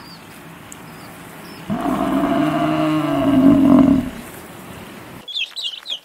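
African buffalo bellowing: one long, low call of about two seconds, starting a little under two seconds in. Near the end, a run of short high chirps begins.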